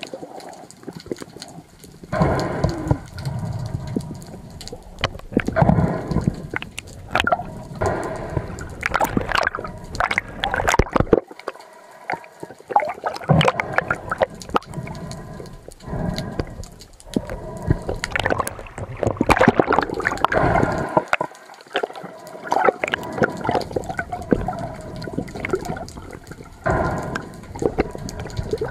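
Sea water gurgling and sloshing around the camera during a spearfishing dive, in irregular surges with many sharp clicks and knocks.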